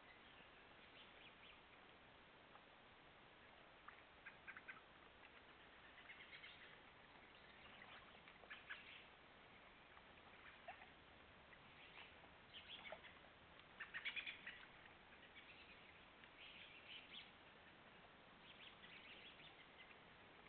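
Near silence: steady microphone hiss, with scattered faint, short high-pitched clicks and chirps coming in little clusters, the strongest about two thirds of the way through.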